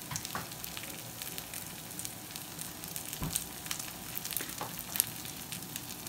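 Washed rice and toasted vermicelli sizzling in hot oil in a pan: a steady hiss with scattered small crackles. A single dull knock comes about three seconds in.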